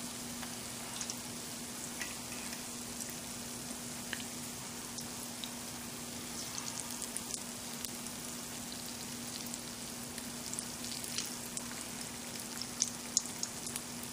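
Batter-coated potato balls (batata vada) deep-frying in hot oil in a small pan: a steady sizzle with scattered small crackles and pops, more of them near the end.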